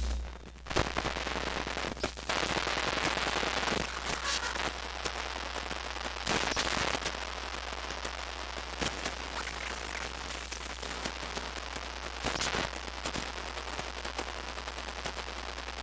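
Radio/TV interference: crackling static hiss over a steady low hum, with irregular clicks and louder bursts of crackle every few seconds.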